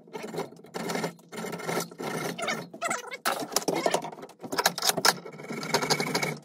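Hand saw cutting wood in quick back-and-forth strokes, trimming off excess wood at the top of a freshly hung axe handle. It pauses briefly about three seconds in.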